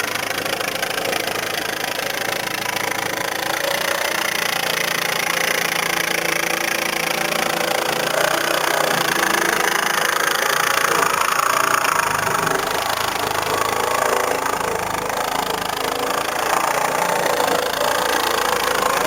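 Power saw cutting through a fiberglass boat hull: a steady, harsh, continuous cutting noise that gets slightly louder a few seconds in.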